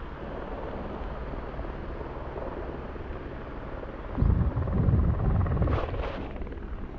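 Wind buffeting the microphone as a steady low rumble, with a stronger gust from about four seconds in lasting a couple of seconds.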